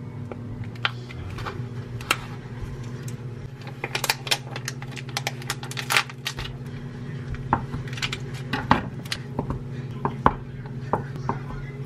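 Thin plastic packaging crinkling and crackling as a grilled chicken breast is pulled out of its clear pouch, in a run of sharp irregular clicks. Near the end a kitchen knife slices the chicken down onto a wooden cutting board. A steady low hum runs underneath.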